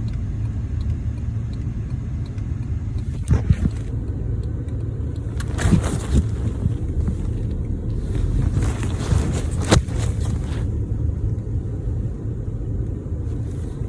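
Car driving, heard from inside the cabin: a steady low rumble of engine and road noise, with a few brief knocks.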